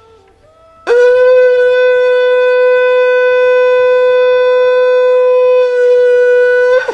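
Handmade wooden conch (shankh) blown in one long, loud note held at a steady pitch. It starts about a second in and cuts off after about six seconds. The tone is the conch-like blast the maker set out to get from wood.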